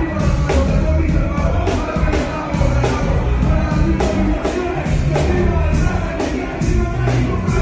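Hip-hop beat played live through a concert PA, with heavy bass and a steady beat about twice a second, and a rapper freestyling over it.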